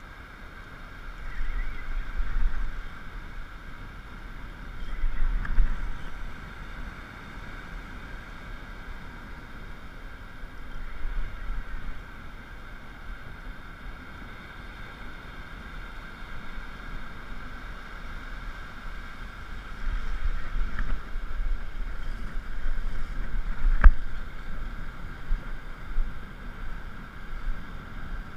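Wind buffeting the microphone in uneven gusts over a steady hiss of surf, with one sharp click near the end.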